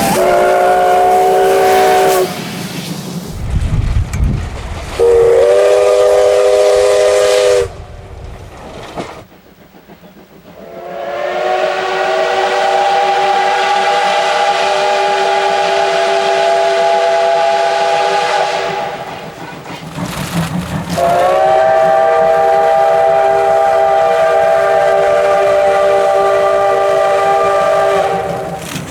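Steam locomotive whistle blown four times: two shorter blasts of about two to three seconds, then two long blasts of about eight seconds each, every blast a chord of several tones that slides up slightly as it opens. Rushing steam and running noise fill the gaps.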